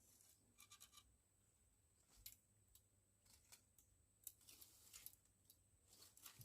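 Near silence: faint scattered clicks and short rustles over a faint steady high-pitched whine.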